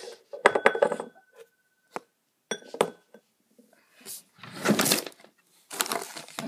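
A small ring dish clinking as it is handled and set down: several sharp clinks in the first three seconds, one leaving a ringing note for about a second and a half. Two rustling handling noises follow near the end.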